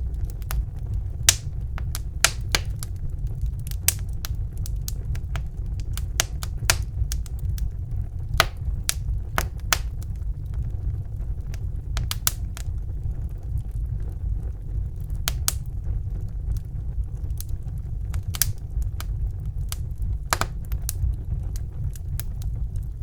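Wood fire burning in a fireplace: a steady low rumble of the flames with irregular crackles and sharp pops of burning wood, a few louder snaps scattered through.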